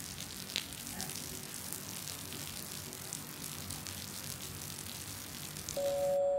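Rain falling on wet pavement: a steady hiss with scattered drip clicks. Near the end, a steady musical tone with two pitches comes in and becomes the loudest sound.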